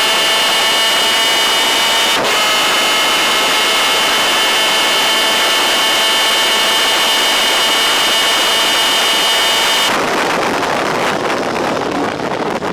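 250cc DEA two-stroke superkart engine, heard onboard, running flat out at a steady high pitch, with a brief break about two seconds in. About ten seconds in the throttle closes and the clean engine note gives way to a rough, uneven sound with wind noise as the kart slows for the next corner.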